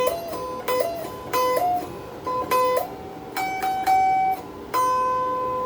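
Donner DST-80 Strat-style electric guitar played through its small included practice amp: a single-note lead phrase in which several notes are bent up in pitch and held, ending on one long sustained note.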